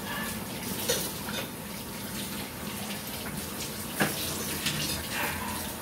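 Kitchen tap running into the sink while mangoes are washed by hand under it, with a light knock about four seconds in.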